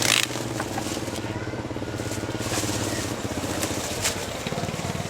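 A small engine running steadily with an even hum, and a brief scrape or hiss right at the start.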